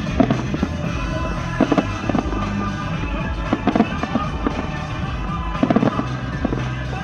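Fireworks going off in quick clusters of bangs about every two seconds, over recorded show music.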